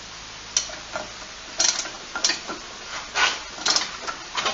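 Metal tools clinking and clanking against an ATV's flywheel, a string of short, irregular knocks as an oil filter wrench is fitted to hold the flywheel for tightening its nut.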